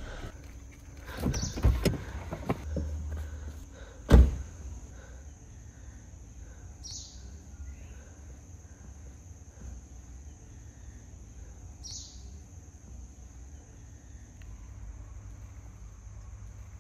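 Car door clicks open and is shut with one loud thump about four seconds in. Then quiet outdoor background with a short high bird chirp about every five seconds.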